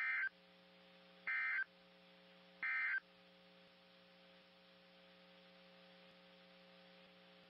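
Three short bursts of buzzy digital data tones, about a second and a quarter apart: the EAS SAME end-of-message signal that closes a weather warning. They sound over a steady radio hum and hiss.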